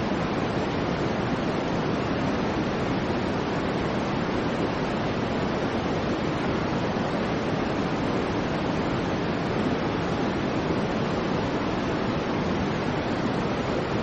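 Soft white noise for sleep, a steady, even rushing hiss weighted toward the low end, with no change at all.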